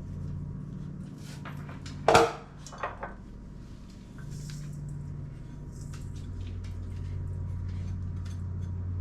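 Kitchen clatter of dishes and utensils being handled: one sharp knock about two seconds in, then two lighter clinks, over a steady low hum.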